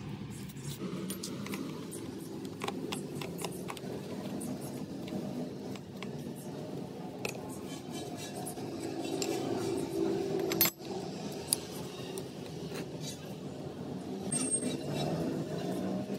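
Metal parts and tools clinking and clicking irregularly during lathe repair work, with one sharper click about ten and a half seconds in, over a steady low rumble.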